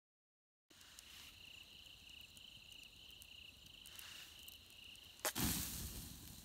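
Crickets chirping in an even, pulsing trill, starting just under a second in. About five seconds in there is a click and then a brief, loud whoosh of noise.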